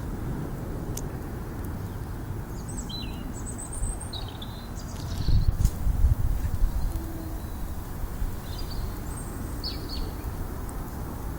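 Small garden birds chirping: short, high calls scattered through, with a few together about three seconds in, more around five seconds and near the end. Under them a steady low rumble swells briefly around the middle.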